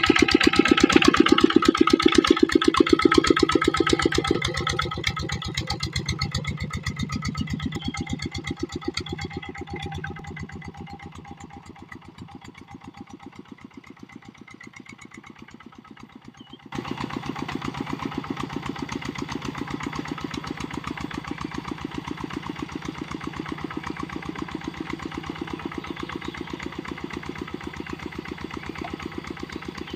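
Kubota RD65 single-cylinder diesel engine of a walk-behind hand tractor running with an even firing beat. It is loud at first and fades over the first quarter-minute, then steps up abruptly about 17 seconds in and runs steadily at a moderate level.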